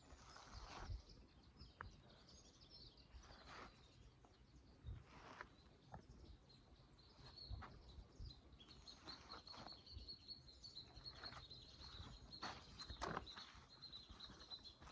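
Faint footsteps on a dirt forest trail, as irregular soft crunches. From about halfway through, a bird sings a rapid trill on one high note.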